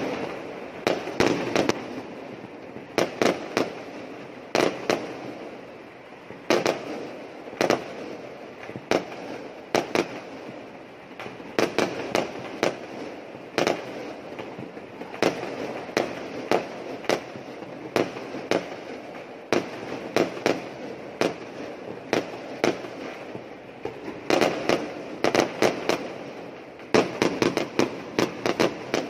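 Many fireworks going off at once, with aerial shells bursting in an almost unbroken run of sharp bangs and pops, several a second at times, over a steady crackle. The bangs come thickest about a second in, again about two thirds of the way through, and near the end.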